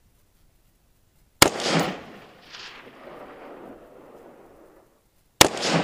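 Two single rifle shots from a 5.56 mm ArmaLite AR-15 (SPR Mod 1), about four seconds apart, the second near the end. Each shot has a long tail, and a fainter second report arrives about a second after it.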